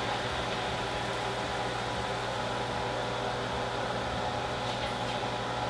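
Steady hum and even hiss of a kitchen fan running.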